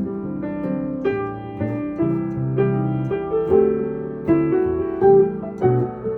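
Piano playing a piece of chords and melody notes, a new note or chord struck about every half second and ringing on between strikes.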